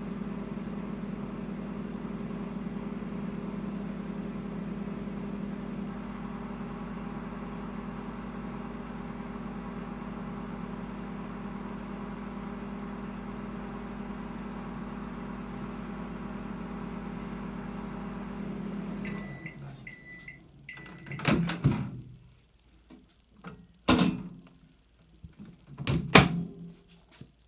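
Microwave oven running with a steady hum during a short drying burst for a flower press. About 19 seconds in it stops and gives three short beeps at the end of the cycle. Several loud clunks and clicks follow.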